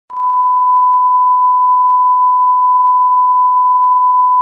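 A steady electronic beep: one unbroken pure tone, like a broadcast test tone, starting just after the beginning and holding at an even, loud level. Faint ticks sound under it about once a second.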